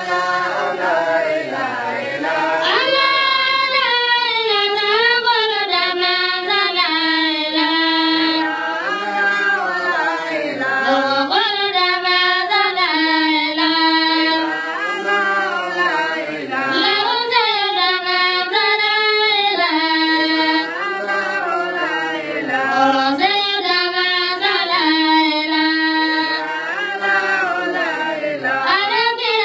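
A high voice singing an unaccompanied melody in long phrases, the pitch gliding and wavering up and down.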